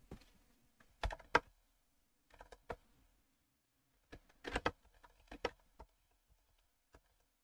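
Computer keyboard typing: keystrokes in several short bursts with pauses between, a command being typed into a terminal.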